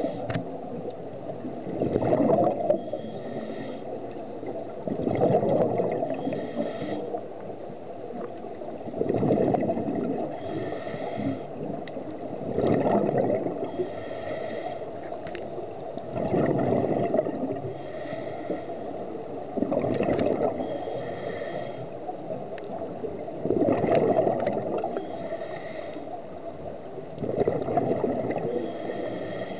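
Scuba regulator breathing: a loud rush of exhaled bubbles about every three and a half to four seconds, with the quieter hiss of each inhalation through the regulator in between.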